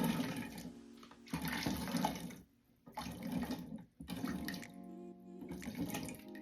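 Raisins, mixed peel and cherries soaked in red wine being poured and scraped into a bowl of wet batter ingredients, with liquid splashing in about four goes separated by short pauses. Background music plays underneath.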